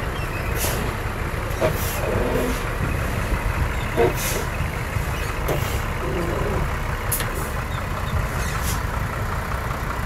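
Heavy diesel earth-moving machinery running steadily under load, with brief sharp noises every second or two.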